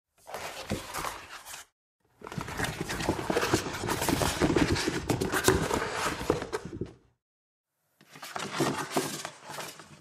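A rubber mask being pulled on: rubber rubbing, stretching and squeaking with fine crackles, in three bouts, the middle one longest, about five seconds.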